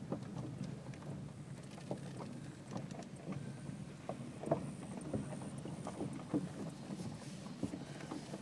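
Car moving slowly, heard from inside the cabin: a steady low engine and road rumble, with scattered light clicks and ticks.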